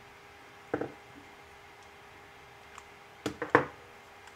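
A few light clicks and knocks of a metal socket wrench and a 3D-printed plastic service block being handled while a 3D-printer nozzle is worked in the block. A close pair comes about a second in, then a louder cluster near the end.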